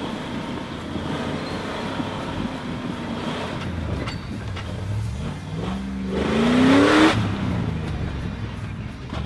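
Off-road vehicle's engine running under load on a trail, revving up with a rising pitch a little past halfway, then dropping off sharply about seven seconds in.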